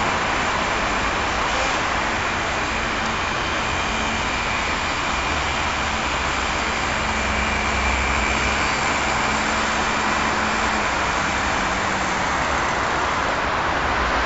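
Steady rushing hiss with the faint, slightly wavering whine of a nitro RC car engine running beneath it.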